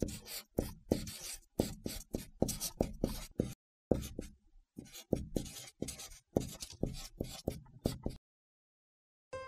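Felt-tip marker drawing on paper in a quick run of short strokes, writing out hand lettering; the strokes stop about eight seconds in. Music starts just before the end.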